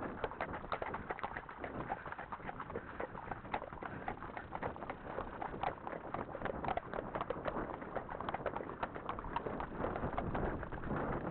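A horse walking on a grassy track, with a steady run of irregular clicks and knocks from hooves, tack and the riding camera's mount. Birds call over it.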